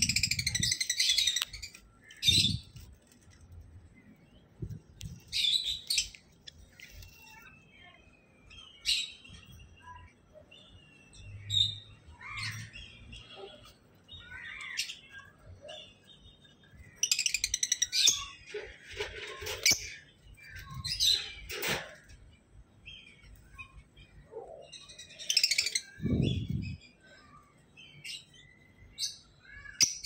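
Lovebirds chirping shrilly in short bursts every few seconds, with a few low thumps in between, the loudest a few seconds before the end.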